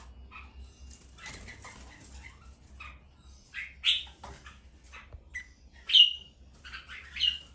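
Caged red-whiskered bulbuls calling: scattered short chirps, with three louder, sharper calls in the second half, the loudest sliding down in pitch.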